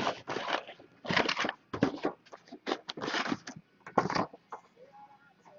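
Cardboard trading-card boxes and their plastic wrap being handled and moved, rustling and crinkling in short irregular bursts.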